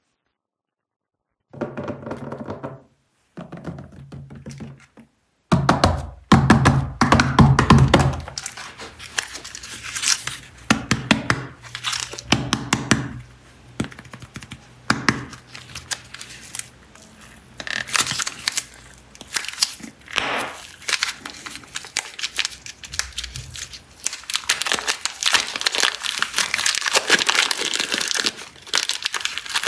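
Plastic clay packaging crinkling and tearing in irregular bursts as packs of air-dry clay are unwrapped, denser and more continuous near the end.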